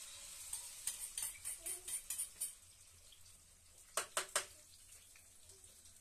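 Beaten egg going into hot oil in a metal frying pan and sizzling, with a metal spoon clinking against the metal bowl and pan: a run of quick clinks in the first half, then three sharp taps about four seconds in.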